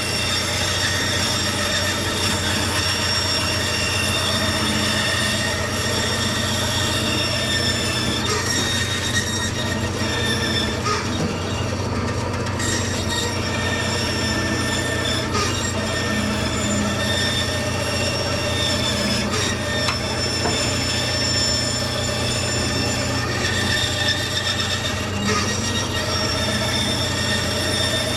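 Electric woodworking power tool running continuously, with a steady high-pitched whine over a constant low hum.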